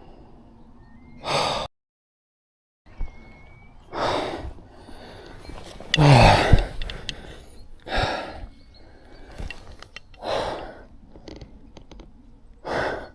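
A man breathing hard, with heavy gasps and sighs about every two seconds and a low groan near the middle. The sound cuts out completely for about a second near the start.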